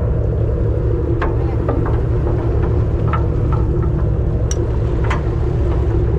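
Boat engine running steadily with a low rumble, and a few light clicks and knocks over it.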